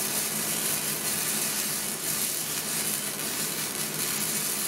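Wire-feed (MIG/flux-core) welding arc crackling and hissing steadily as the gun runs a bead on galvanized steel, throwing spatter.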